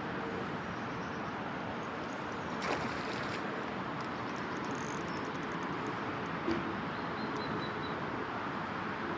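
Steady rushing outdoor background noise, with a brief faint bird call about seven seconds in.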